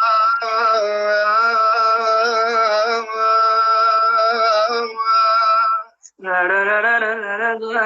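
A solo voice singing long, ornamented wordless notes in an Arabic mawwal-style lament, the pitch wavering and turning within each held note. The voice breaks off briefly about six seconds in, then comes back.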